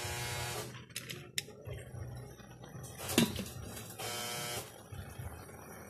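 A sharp clink about three seconds in as a glass pan lid comes off, with two short buzzing sounds, one at the start and one about four seconds in.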